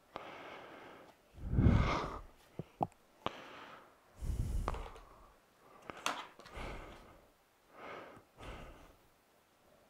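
Hard plastic shop-vac accessory parts handled and turned over, giving a few sharp clicks and knocks, with several breaths and sighs close to the microphone in between.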